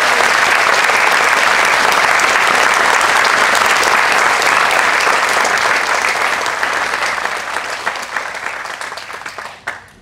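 A large group of people applauding, loud and dense at first, then thinning out over the last few seconds and ending with a few scattered claps.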